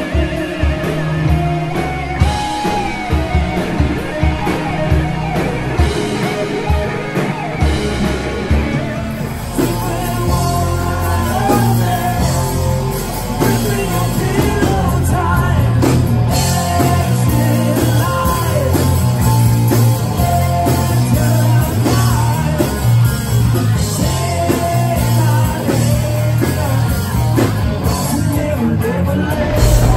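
Live rock band playing loudly, with electric guitar and a singer; the sound cuts to another song about nine seconds in.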